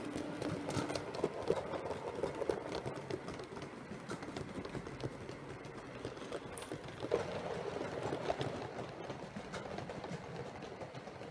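A 7mm-scale (O gauge) model train running past on the track: a steady rumble with many irregular clicks from the wheels running over the rail joints and pointwork.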